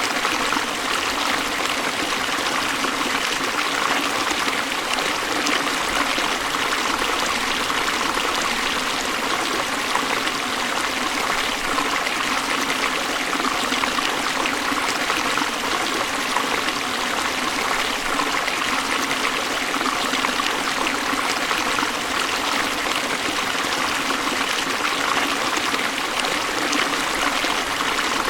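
River water rushing over falls, a steady even rush with no breaks.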